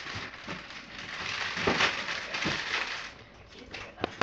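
Rustling and crinkling of handled packaging, with a few sharper scrapes, dying down after about three seconds; a sharp click near the end.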